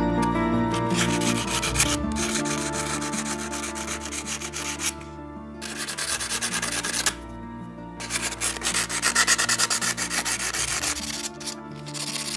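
A piece of quartzite being rubbed by hand on coarse sandpaper, grinding material off the stone in quick scratchy back-and-forth strokes. The sanding pauses briefly about five and seven seconds in, then resumes.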